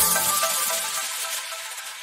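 Background electronic music ending: the beat and bass stop, and the last held notes fade away.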